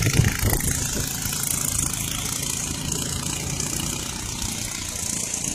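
A small motorboat's engine running steadily under way, a low, even drone with a steady high hiss over it.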